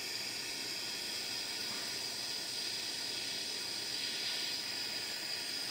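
Handheld gas torch burning with a steady hiss as its flame heats an aluminium bracket and bolt up to soldering temperature.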